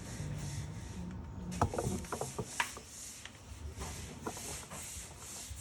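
Rhythmic hand rubbing or scrubbing strokes, about two to three a second, starting a little over a second and a half in, with a few light knocks of parts early in the strokes.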